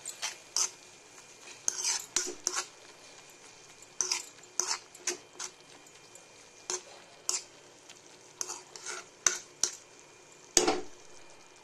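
Spatula stirring Maggi noodles in a kadai, with irregular sharp clinks and scrapes of the spatula against the pan, the loudest near the end. A faint sizzle of the cooking noodles runs underneath.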